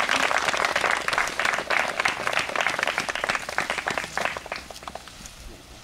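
Crowd of guests applauding, a dense patter of many hands clapping that thins out and dies away near the end.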